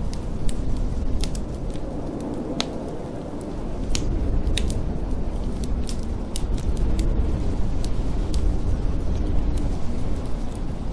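Wood fire crackling in a fireplace, with sharp irregular pops, over a steady low rush of storm wind.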